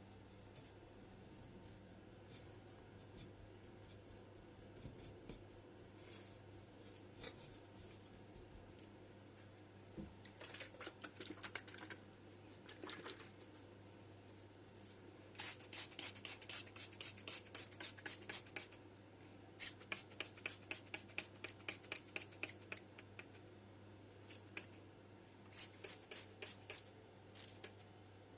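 Scissors snipping in quick runs of several cuts a second, starting about halfway through, with softer rubbing and rustling of handled material before them.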